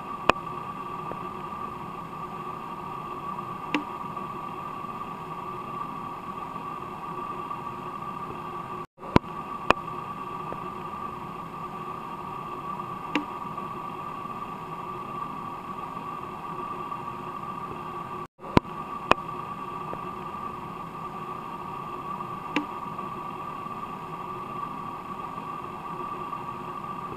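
Steady mechanical hum with hiss and a few faint clicks. The same stretch of sound repeats about every nine seconds, with a brief cut between repeats.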